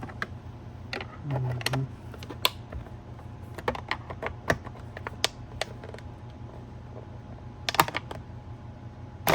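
Irregular light clicks and taps of plastic as a Hyundai Kona side mirror's cover and clips are worked by hand, with a quick cluster of clicks near the end.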